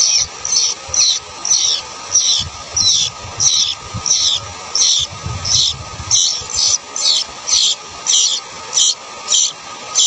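Sooty-headed bulbul nestlings begging: a steady series of short, high, squeaky notes, each dropping in pitch, about two a second.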